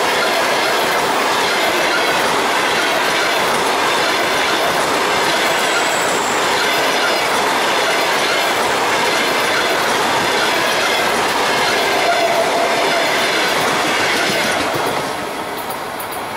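A train of passenger coaches on an express hauled by an electric locomotive, running past at speed: a loud, steady rumble and clatter of wheels on the rails that dies away about fifteen seconds in as the last coach goes by.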